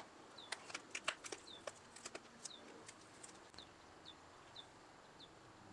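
Faint scattered light clicks and ticks as thin CA glue is dabbed from a plastic squeeze bottle into the seams of a wooden veneer model deck. They are most frequent in the first three seconds. Under them, a short high chirp, falling slightly in pitch, repeats about every half second.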